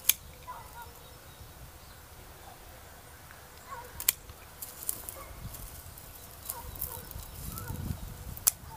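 Hand pruning shears snipping through grapevine canes: two sharp snips, one at the start and one about four seconds in, with fainter clicks near the end.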